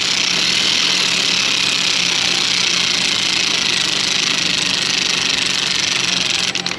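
Power ratchet spinning a spark plug down on a long extension: a steady hiss over a low hum that cuts off abruptly near the end.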